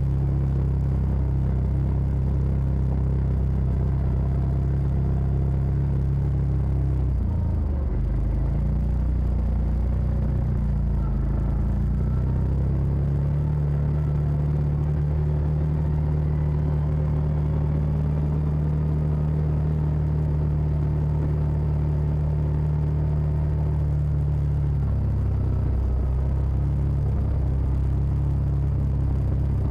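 Side-by-side UTV engine running under way, a steady low drone whose pitch dips and recovers a few times as the machine slows and picks up speed.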